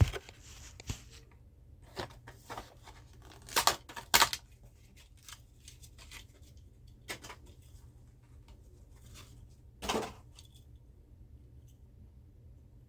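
Handling noises as a die-cast toy car is turned over in the hands: scattered clicks and crackly rustles, with louder crackles near four seconds in and again near ten seconds.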